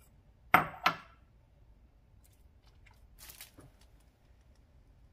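A metal spoon clinks twice, sharply, against a small ceramic bowl while sauce is stirred, followed a couple of seconds later by faint handling noises of the bowl.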